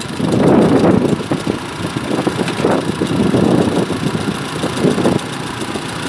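IHC hay baler running, its engine-driven works making a steady mechanical noise with a heavier stroke repeating roughly once a second.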